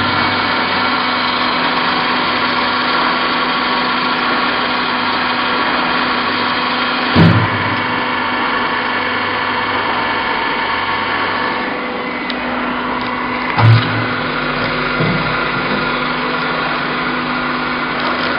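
Sawdust pallet-block making machine running with a steady mechanical hum of many tones, with two short knocks, one about seven seconds in and another about six seconds later.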